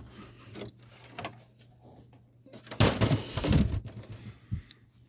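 Handling noises from a plastic box fan being moved and turned around: a few light knocks and clicks, with a louder rubbing, shuffling stretch about three seconds in. A faint steady low hum runs underneath.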